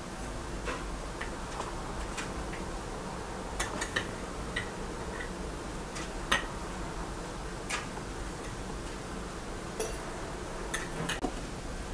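A metal teaspoon makes light, irregular clicks and clinks against a ceramic teapot as loose tea is spooned in, with the sharpest tap about six seconds in, over a faint steady low hum.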